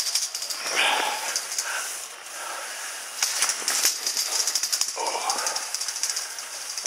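Skis hissing and scraping over late-season snow while being pulled up a button drag-lift, with a fast rattling clatter throughout. Two brief squeaks rise out of it, about a second in and about five seconds in.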